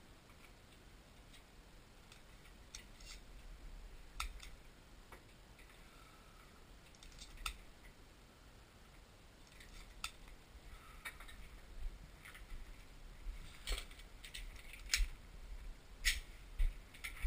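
Scattered metallic clicks and clinks from a Remington 870 pump-action shotgun being handled, a few seconds apart at first and coming faster and louder near the end.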